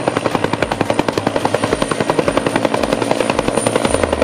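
Helicopter flying by, its rotor beating in a fast, even chop with a thin steady high whine above it.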